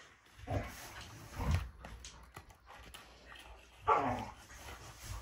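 Dogs barking and whining in the background: a few separate calls, the loudest about four seconds in and falling in pitch.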